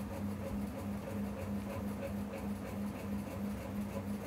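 A low, steady hum that pulses evenly about four to five times a second.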